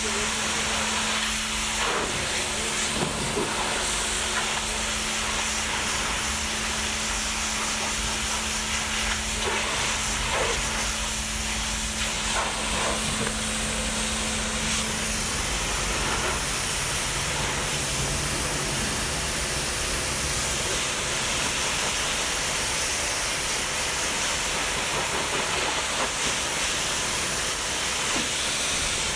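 Steady hissing spray from car-cleaning equipment, with a low motor hum underneath that fades out about halfway through.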